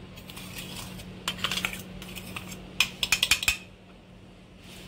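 Stainless-steel mixer-grinder jar tapped against a metal mesh strainer to knock out freshly ground powdered sugar: two short runs of light metallic clinks, the second a little over a second after the first.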